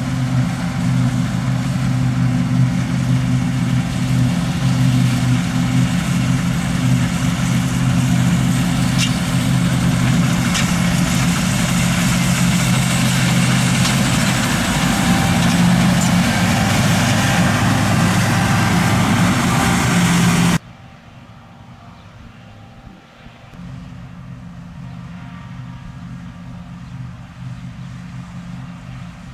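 Fendt 6275 L combine harvester running steadily under load. About two-thirds of the way through, the sound cuts off abruptly to a much quieter, more distant engine.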